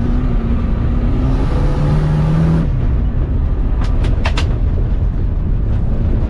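Turbo Volvo 940 off-road car's engine running hard toward a jump, with a heavy low rumble. Its note drops about a second and a half in and the hiss above it cuts off soon after. A few sharp knocks follow about four seconds in.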